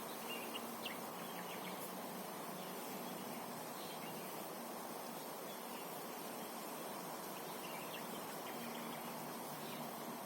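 Outdoor campsite ambience: a steady hiss with faint, scattered short high chirps from small creatures such as insects.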